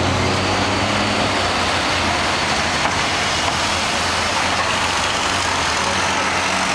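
Road traffic: cars and SUVs driving past close by through an intersection, a steady rush of engine and tyre noise. A low engine hum fades out about half a second in as an SUV moves off.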